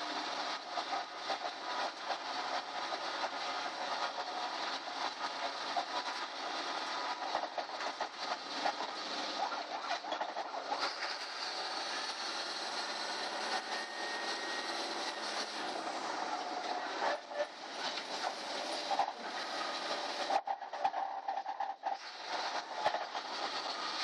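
A school bus driving, heard from inside the cabin: steady engine and road noise with many small rattles and clicks from the bus body.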